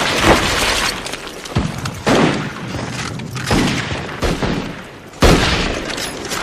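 Battle sound effects: scattered rifle shots and explosions at irregular intervals, with a sudden loud blast a little after five seconds in.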